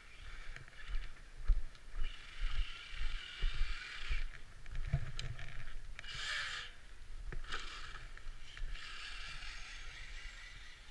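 Axial Yeti Score RC trophy truck running on snow: its electric drivetrain whirring and tyres churning through the snow in several spurts of throttle, with low thumps in the first half.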